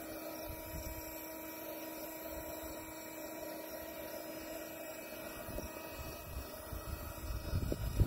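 Electric air pump running with a steady motor hum while it inflates an inflatable kayak. A few low knocks from handling the hose and valve come near the end.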